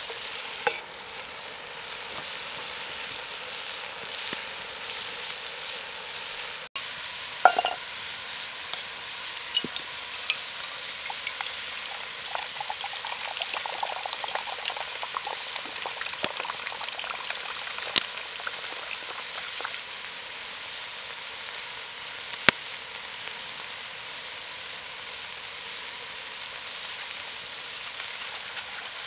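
Pork, beef and onions frying and sizzling steadily in a cast-iron Petromax Dutch oven set in campfire embers, with a few sharp clicks. Partway through, water is poured into a metal enamel mug.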